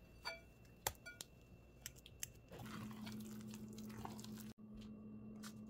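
A metal fork mashing ripe banana in a glass bowl, with several sharp clinks of the fork against the glass, one ringing briefly. About two and a half seconds in this gives way to a soft squishing of thick batter being folded with a silicone spatula over a steady low hum.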